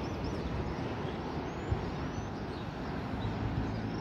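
Boeing 737 jet on final approach with its landing gear down, heard at a distance as a steady low rumble. A few faint high chirps sit above it.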